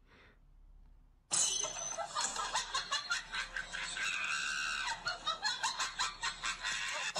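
Loud laughing and shrieking starts suddenly about a second in, with quick repeated bursts like rapid 'ha-ha' syllables and a higher held squeal near the middle.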